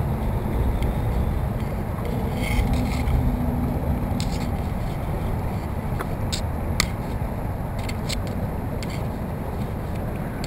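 Steady wind rumble on the microphone with water washing along the hull of a moving kayak. From about six to nine seconds in there are a handful of sharp ticks and scrapes as the orange mesh safety flag swings against the camera.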